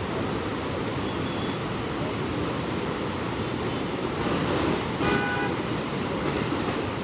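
Lake water overflowing a stepped concrete spillway, pouring and splashing steadily. A short pitched tone sounds about five seconds in.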